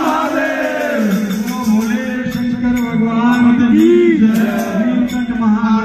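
A male voice sings a Hindu devotional chant with music, loud over a loudspeaker, in long notes that bend up and down in pitch.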